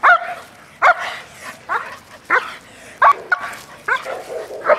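German Shepherd on a leash barking over and over in short, sharp barks, about two a second, each falling in pitch. The barking is leash-reactive, set off by the sight of another dog.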